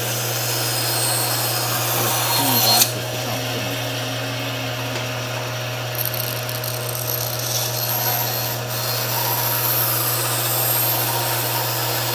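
Band saw running with a steady hum while its blade cuts a bevel along the edges of a small triangular workpiece. A sharp knock comes about three seconds in, with a smaller click a few seconds later.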